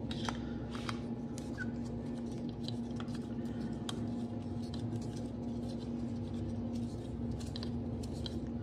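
Small, irregular clicks and scrapes of a driver adjustment wrench turning the screw in a golf driver's adjustable hosel, as the loft setting is changed. A steady low hum runs underneath.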